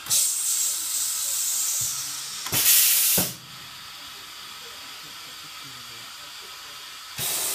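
Compressed air hissing from the pneumatic system of an MZB73212 multi-spindle boring machine. A hiss lasts about two and a half seconds, then comes a louder short blast that starts and stops with a knock. After a quiet stretch, another hiss starts near the end.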